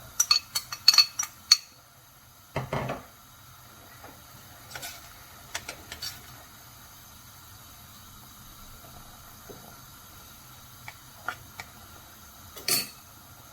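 Spoon clinking and knocking against a cooking pot while green curry paste goes into the coconut milk. A quick run of clinks comes in the first second and a half, then a dull knock, then scattered single clicks.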